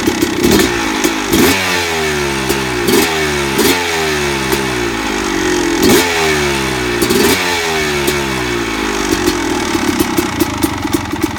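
Suzuki RM250 two-stroke single-cylinder dirt bike engine being blipped again and again, the revs jumping up and falling back each time. Near the end it settles to idle with an even, regular rattle.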